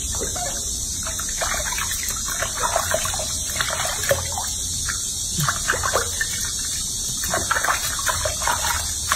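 Water splashing and dribbling in a washbasin as hands scoop it over a baby monkey being bathed: short, irregular splashes and trickles.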